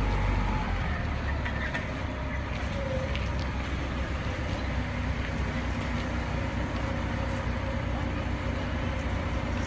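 Heavy diesel engine running steadily at a low rumble while it holds a suspended load; the deepest part of the rumble eases about half a second in. Crowd voices are faint behind it.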